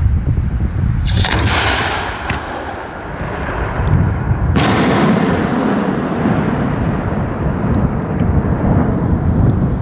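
A 100 mm (4-inch) aerial firework shell is fired from its mortar with a sharp report about a second in. About three and a half seconds later it bursts with a louder, sharper bang that echoes away slowly. Wind rumbles on the microphone throughout.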